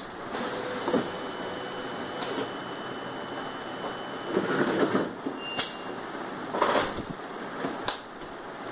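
Semi-automatic bottle labeling machine running with a steady mechanical whir. About six sharp clacks and knocks come as plastic bottles are set into the machine, rolled under its pressure roller and lifted out, with a louder rustling clatter about halfway through. A thin high whine sounds from about one second in to about four.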